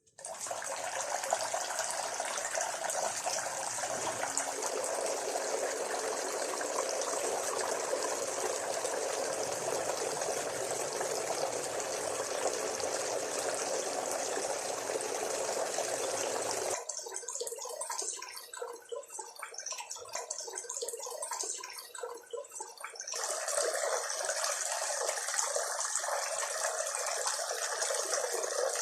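Water falling and splashing steadily in a small homemade cement waterfall fountain. It drops much quieter for several seconds past the middle, then comes back at full strength.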